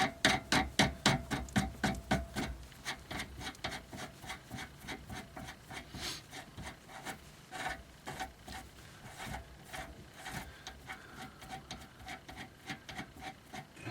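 A jam nut being spun by hand along the threaded inner tie rod: a rapid rhythmic metallic rasping click of threads, about four a second, louder for the first couple of seconds and then fainter.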